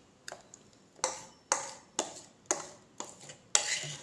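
Metal spoon knocking against a bowl in sharp, briefly ringing clinks, about two a second, while scraping out the melted chocolate mixture.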